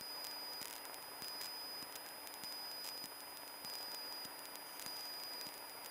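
Faint steady hiss of an aircraft radio and intercom audio feed between transmissions, with a thin electrical whine and faint scattered ticks of interference.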